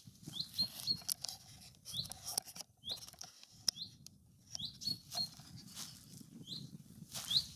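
A small bird repeats a short, rising chirp about once a second, over light rustling and footsteps in grass.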